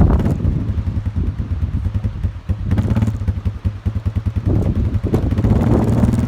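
Old Yamaha Wolverine quad's single-cylinder engine running in rapid low pulses, with rattling and knocks from the machine. The engine settles into a steadier hum about halfway through.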